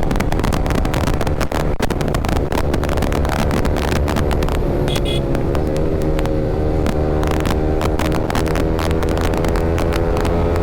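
Yamaha R15 V3's single-cylinder engine, fitted with an aftermarket Akrapovic R9 exhaust, running at a steady highway cruise, heard from on board.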